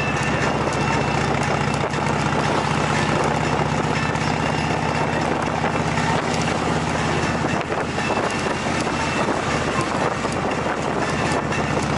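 Vehicle engine running steadily while driving at about 45 km/h, a low hum under wind and tyre noise picked up by an onboard camera; the engine hum fades somewhat about seven seconds in, leaving mostly wind and road noise.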